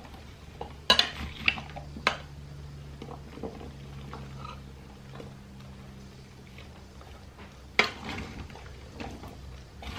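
A long metal spoon stirring cubed raw vegetables and beef in a stainless steel mixing bowl: soft scraping of the chunks, with sharp clinks of the spoon against the bowl about a second in, twice more in the next second, and again near the end. A low steady hum runs underneath.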